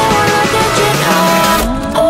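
Background music with a soundtrack. In the second half a rising sweep builds while the treble falls away.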